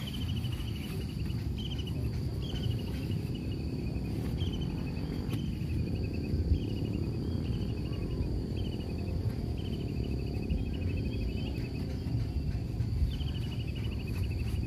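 Outdoor insect chorus: a steady high drone with short falling chirping trills repeated about once a second, over a continuous low rumble of wind on the microphone.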